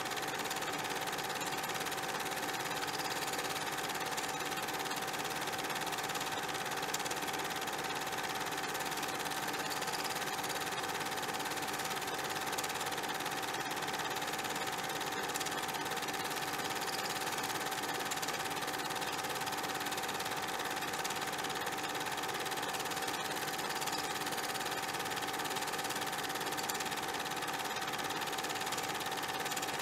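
Steady machine-like whirring noise with a constant mid-pitched tone over an even hiss.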